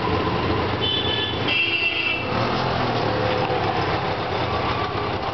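Auto-rickshaw in motion through city traffic: its engine running with a steady rush of road noise. Two brief high tones sound about one and two seconds in.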